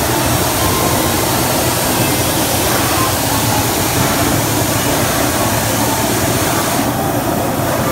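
Steady, loud rushing of the air blowers and suction hoses that move foam balls around a ball-play room, running without letup.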